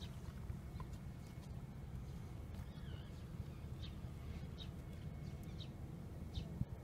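A steady low rumble of wind on the microphone, with a few faint, short high chirps scattered through the second half.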